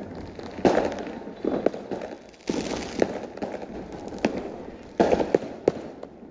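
Aerial fireworks bursting overhead: a run of sharp bangs at irregular intervals, a few in quick succession, each trailing off in a brief echo.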